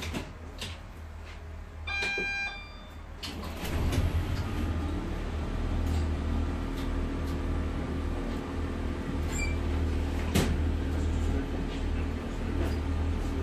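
Class 142 Pacer diesel railbus standing with its underfloor engine running, a steady low rumble with a hum of steady tones, which grows louder from about three and a half seconds in. A short electronic beep sounds about two seconds in, and a single sharp knock comes near ten seconds.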